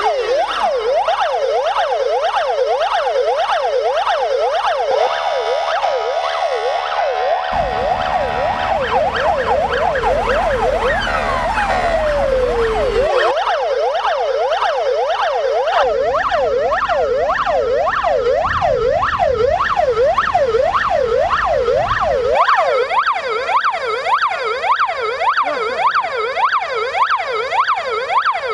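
Fire and rescue vehicle sirens sounding together in a fast yelp, each rising and falling two to three times a second, several overlapping out of step. About halfway through, one siren winds down in a long falling glide.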